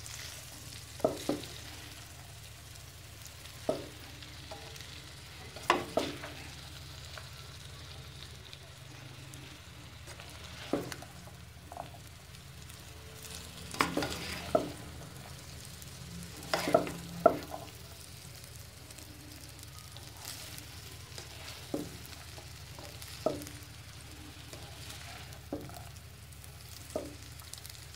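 Slotted spatula stirring fried rice in a wok-style pan, knocking and scraping against the pan in irregular clinks every second or two over a faint steady background.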